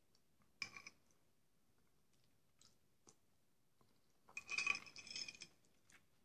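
Metal spoon scraping and clinking against a ceramic bowl while scooping up jellied meat: a short scrape just after half a second in, then a longer scrape of about a second and a half past the four-second mark.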